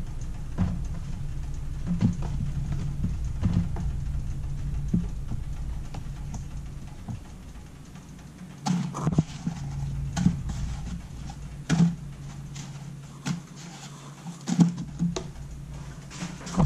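Scattered taps, clicks and knocks of kitchen utensils against dishes as eggplant slices are breaded, over a low steady hum. The clicks come more often and louder in the second half. The frying oil is not yet hot enough to sizzle.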